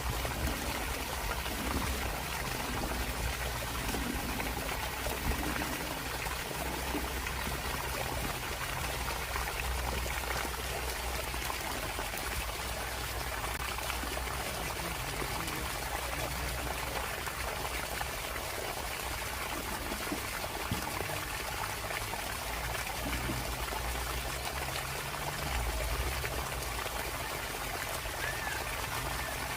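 Water pouring steadily from the open end of an outdoor sump pump's discharge line, pushed by a 1/3-horsepower pump.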